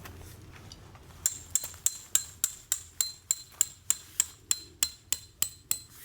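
A hammer driving a metal tent peg: a steady run of about sixteen sharp blows, roughly three a second, each with a brief metallic ring.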